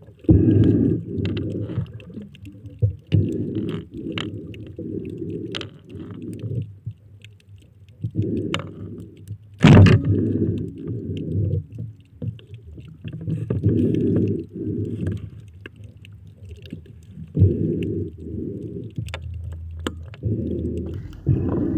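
Muffled underwater rumbling and gurgling of water moving around a camera in a waterproof housing, coming in uneven surges, with a few sharp clicks and one loud knock about ten seconds in.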